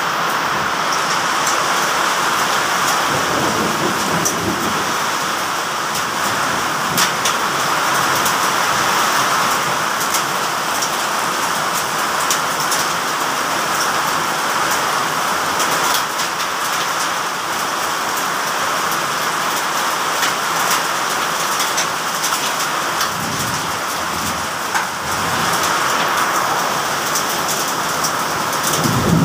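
Heavy rain and hail in a steady downpour on roofs and yard, with frequent sharp ticks of individual impacts.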